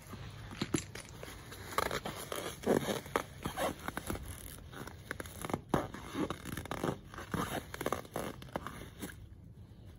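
A dog's teeth and muzzle rubbing and scraping on the taut skin of an inflated rubber balloon as it mouths and pushes it. The result is a run of short, irregular scrapes, thickest from about two seconds in and dying away near the end, with no pop.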